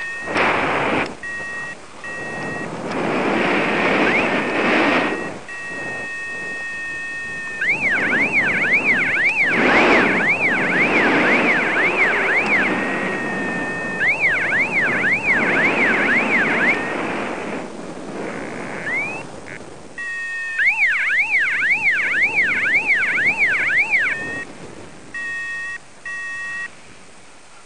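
Electronic flight-instrument (variometer) tones: short beeps on two pitches, then long runs of a tone warbling quickly up and down about twice a second. A rushing wind noise on the microphone swells and fades underneath.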